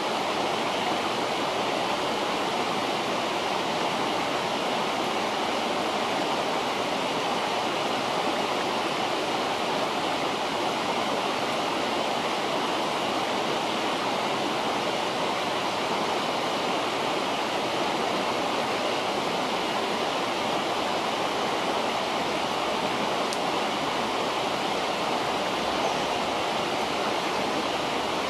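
River water rushing steadily, an even, unchanging noise.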